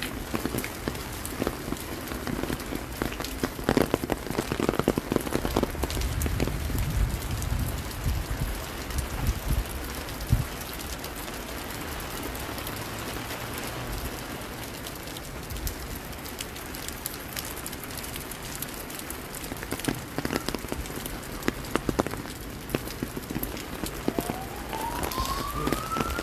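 Rain falling steadily, many small drops hitting close to the microphone, with a few louder knocks and low rumbles in the first ten seconds. Near the end an emergency-vehicle siren starts up, its wail rising in pitch.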